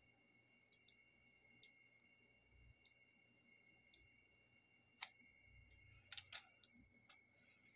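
Sparse small clicks and light taps from craft supplies being handled on a desk. The sharpest click is about five seconds in, with a quick cluster just after six seconds, all over a faint steady high whine.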